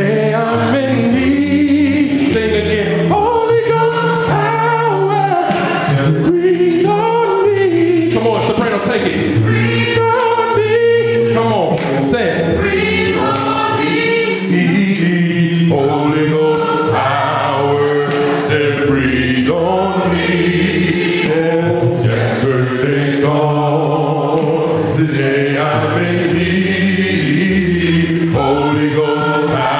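Gospel worship song sung a cappella by a group of voices in harmony, without instruments.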